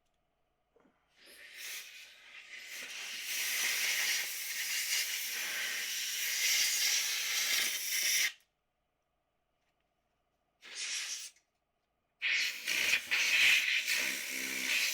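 Compressed air from an air-compressor blow gun blasting dust out of a refrigerator's condenser coils, in bursts: a long blast that builds up about a second in and lasts some seven seconds, a short one near eleven seconds, and another starting about twelve seconds in.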